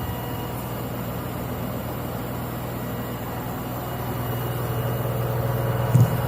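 LG front-load washing machine drum spinning at its full 1200 rpm spin speed: a steady low hum with faint steady high tones, getting slightly louder over the last couple of seconds. A brief thump sounds near the end.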